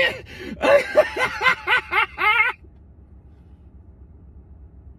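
A man laughing hard: a quick run of about eight high-pitched, breathy laughs that climb in pitch and stop about two and a half seconds in, leaving only a low steady hum.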